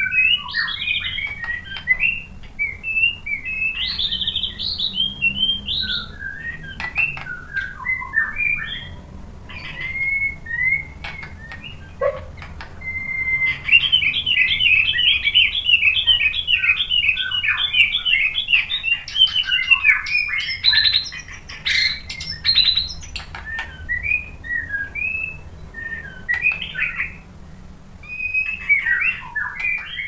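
White-rumped shama (murai batu) singing a long, varied string of loud whistled phrases. Near the middle comes a fast trill of rapidly repeated notes lasting several seconds. A faint low hum runs underneath.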